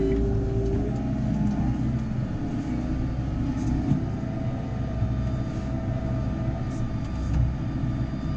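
JCB Fastrac 4220's diesel engine running steadily under load while pulling a plough, with a continuous even drone and no change in revs.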